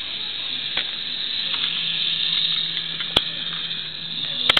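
Battery-powered GeoTrax toy train running along its plastic track, its small electric motor and gears giving a steady whir. A few sharp clicks come about a second in, after three seconds and near the end.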